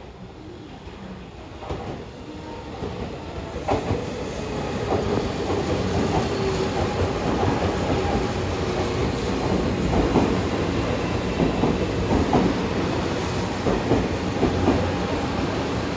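Tobu 500 series 'Revaty' electric limited express, two three-car sets coupled, running through a station without stopping. A rush of wheels on rail grows over the first four seconds or so as the train nears, then holds as a loud, steady running noise with regular clacks of the wheels over rail joints.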